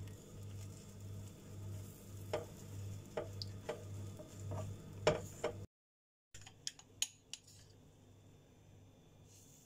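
Spatula knocking and scraping against a nonstick frying pan while soufflé pancakes cook, several light clicks over a low pulsing hum. A brief cut to silence comes a little past halfway, followed by a few more clicks and then a faint hiss.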